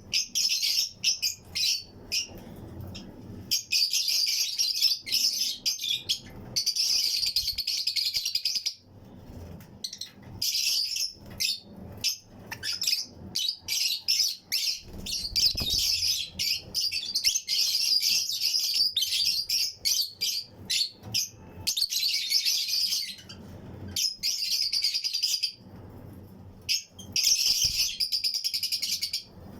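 A colony of Fischer's and lutino lovebirds chirping. The calls are rapid, shrill and overlapping, and they come in spells of a few seconds separated by short lulls.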